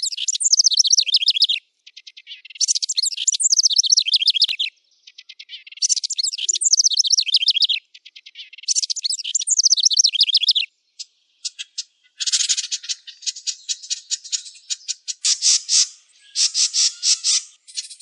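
Wren singing: four high-pitched phrases, each about one and a half to two seconds long, made of fast trilled notes that run downward, with short pauses between them. About two-thirds of the way in, these give way to a longer run of rapid, repeated chattering notes.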